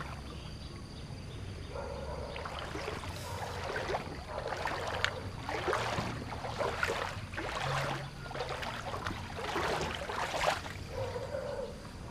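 Water splashing and sloshing in a run of short strokes, roughly one a second, over a low steady rumble.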